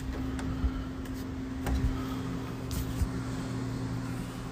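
Steady low hum of a running machine or appliance, with a few faint clicks and knocks.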